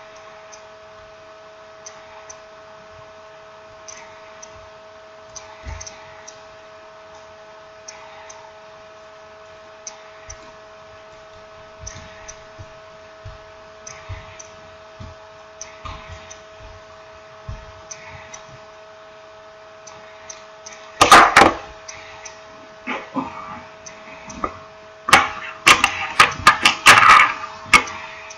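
A steady electrical hum with faint scattered clicks, broken by a loud burst of knocking and rattling about two-thirds of the way in and a longer run of clattering knocks near the end, typical of small parts and tools being handled on a work surface.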